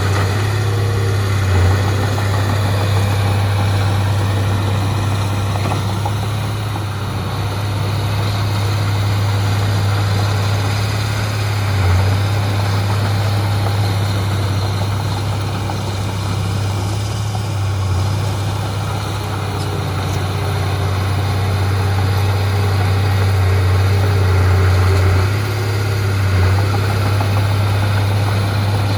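Heavy diesel earthmoving engine running steadily with a deep, even hum that briefly swells a few times.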